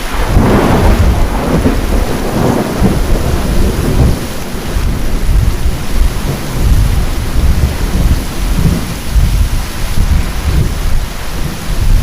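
Heavy rain pouring with thunder rumbling continuously underneath; a louder peal of thunder swells in just after the start and then rolls on as a deep rumble.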